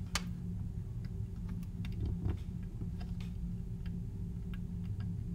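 Faint, irregular clicks and ticks of a temperature sensor's wire leads being pushed into a plastic solderless breadboard, the sharpest just after the start, over a steady low hum.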